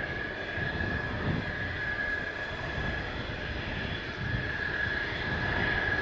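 Steady high-pitched whine of military jet engines on the ground at low power, with gusty wind buffeting the microphone underneath.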